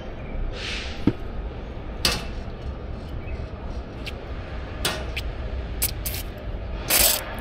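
A few short hisses and sharp metal clicks over a steady low rumble, from bleeding the fuel system of a Perkins diesel generator engine: air is still coming out with the fuel.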